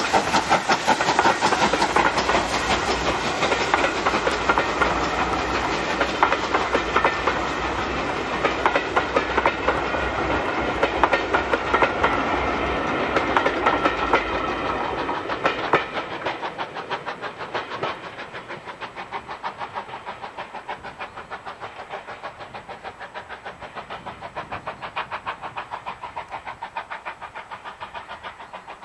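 Steam-hauled passenger train behind GWR Modified Hall 4-6-0 No. 6990 Witherslack Hall passing close by, the wheels clicking rhythmically over the rail joints. Loud at first, it drops about sixteen seconds in and fades as the train draws away.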